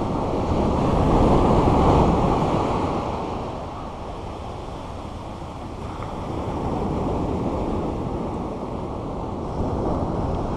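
Shore break on a beach: waves breaking and foamy water washing up around the standing angler, swelling loudest about two seconds in, ebbing in the middle and building again.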